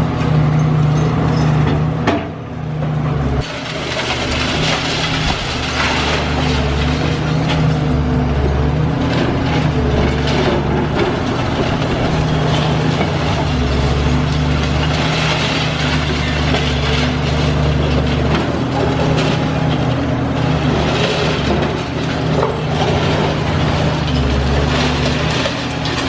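Heavy excavator diesel engine running steadily under load, with grinding, crunching and clattering from concrete and debris being torn down.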